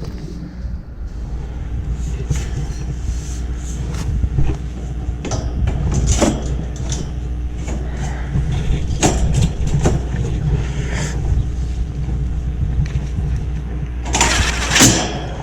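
Sheet-metal condenser cabinet panels being handled and screwed on, with scattered short metallic clicks and knocks and a louder scraping burst near the end. A steady low rumble runs underneath.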